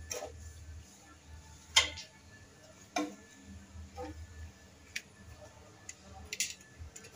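Putty knife clicking and tapping against a ceramic tile while non-sag epoxy is spread on its back. There are several sharp, irregular clicks a second or so apart, the loudest about two seconds in, over a faint low hum.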